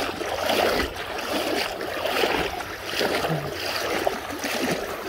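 Legs wading through knee-deep floodwater, the water swishing and sloshing with each stride in a rough rhythm of about one a second.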